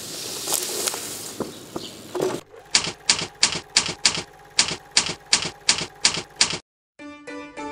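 Typewriter key strikes as a sound effect, a steady run of sharp clacks at about three a second, following a couple of seconds of hissing background noise. The clacks stop abruptly, and a harpsichord-like keyboard tune begins near the end.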